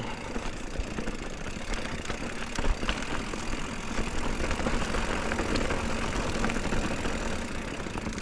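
Mountain bike rolling over a rough trail: steady tyre rumble with frequent small rattles and clicks from the bike, and wind buffeting the microphone.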